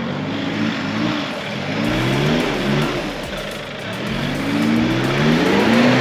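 Off-road 4x4's engine revving under load, its pitch climbing and dropping several times with a longer climb near the end, over steady track and tyre noise.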